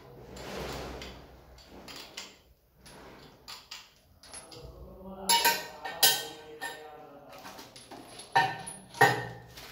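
Metal clinks and knocks as a chrome basin mixer tap, its braided flexible hoses and hand tools are handled against each other and the ceramic wash basin: a few sharp strikes with a brief ring, the loudest about halfway through and near the end.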